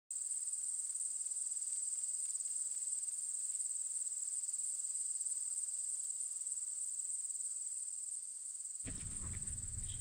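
A chorus of night insects giving a continuous high-pitched trill. About nine seconds in, a low rustling rumble joins it.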